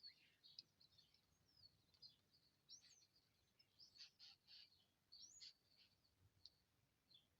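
Faint, high chirps and short call notes of small birds, several every second, some sweeping quickly up or down.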